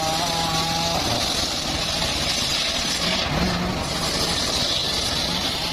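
Engine of a homemade circular sawmill running steadily, its pitch rising briefly about three and a half seconds in, with a high hiss over most of it.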